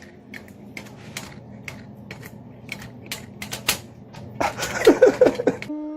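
Irregular sharp clicks or taps, about two a second, then a louder burst of wavering pitched cries between about four and a half and six seconds in. A steady held tone begins just before the end.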